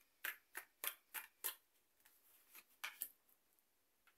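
Tarot cards being handled and dealt: a string of crisp card clicks and slaps, about five in the first second and a half and one more just before three seconds, as cards are drawn from the deck and laid on the table.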